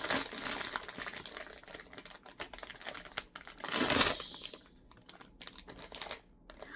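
Blind-box packaging being handled and opened: cardboard and wrapping crinkling and rustling with small clicks, and a louder burst of rustling about four seconds in.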